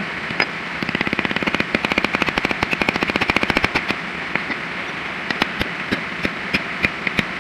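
A rapid series of sharp taps or clicks, very fast from about a second in, then thinning out to scattered single taps, over a steady hiss.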